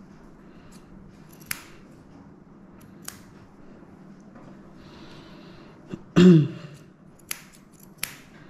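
Curved grooming scissors snipping fur around a schnauzer's paw: a few sharp, separate snips over a low steady hum. About six seconds in comes the loudest sound, a short vocal sound that falls in pitch.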